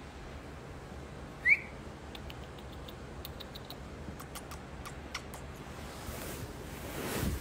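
A woman whistles once, short and rising, then makes a string of quick kissing smacks with her lips, calling her dog. A rising rustle near the end, as the phone is moved about.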